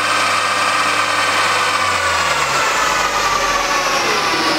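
Opel Zafira's driven wheels spinning a chassis dynamometer's rollers during a warm-up run: a steady high-pitched mechanical whine that starts slowly falling in pitch about two and a half seconds in, as the engine note drops and the rollers coast down.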